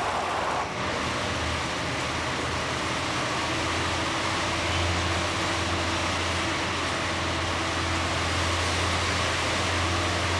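City bus running, heard from inside the cabin: a steady low engine drone under even road and rattle noise.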